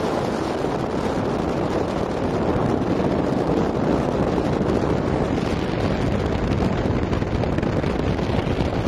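Wind buffeting the microphone: a steady, dense low rumble with no clear pitch.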